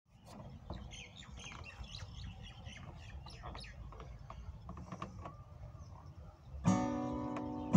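Small birds chirping over a low rumble, with a few light clicks; about 6.7 seconds in an acoustic guitar chord is strummed and left ringing.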